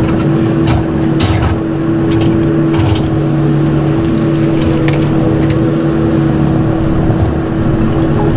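Bobcat E26 mini excavator's diesel engine running steadily under hydraulic load, with a sharp crack or knock every second or so as it tears through brush.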